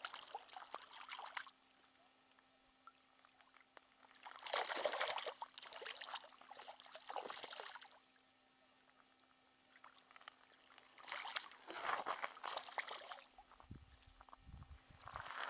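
A freshly released rainbow trout splashing in shallow water at the shore's edge, in several separate bursts with quiet between.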